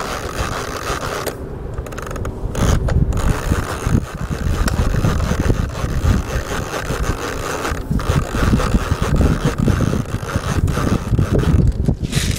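Metal drum magazine of an airsoft Thompson being wound up by hand: the winding ratchet clicks rapidly in runs, with a few short pauses, over low handling knocks. The winding tensions the feed spring so the drum can push BBs into the gun.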